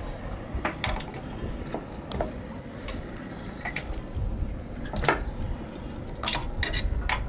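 Metal hand tool clicking and clinking on the bolts of a yacht's anchor windlass as they are unscrewed: irregular sharp metallic clicks, with a louder clink about five seconds in and a few more near the end, over a low rumble.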